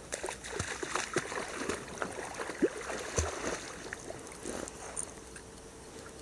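Irregular splashing and rustling of wading through shallow marsh water and dry reeds, busiest in the first few seconds and thinning out near the end.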